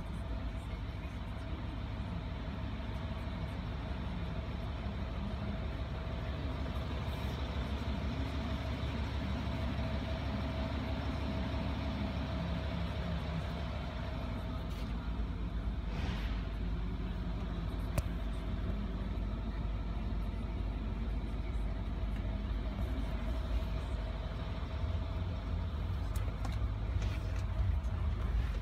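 Range Rover Sport 3.6 TDV8 twin-turbo V8 diesel idling steadily, heard from inside the cabin, with a single light click partway through.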